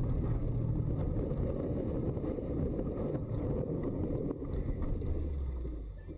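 Car engine running with a dense rumble of snow striking the car as it ploughs off the road into deep snow. The engine note drops about five seconds in and the rumble eases near the end.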